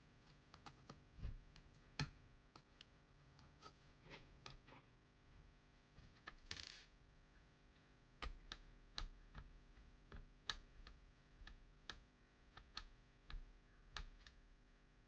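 Faint, irregular clicks and light taps of small hard objects being handled, with a short scrape about six and a half seconds in.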